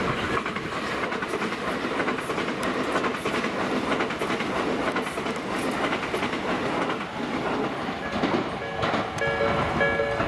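An electric commuter train passing over a level crossing, its wheels clattering over the rail joints. The crossing's warning bell rings alongside and comes through clearly in the last couple of seconds.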